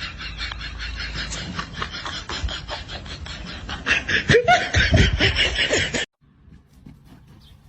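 People laughing in quick, breathy bursts, cut off abruptly about six seconds in.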